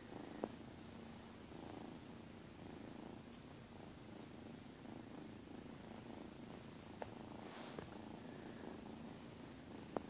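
Kittens purring, a faint, steady purr as they are petted. A few brief soft clicks sound over it.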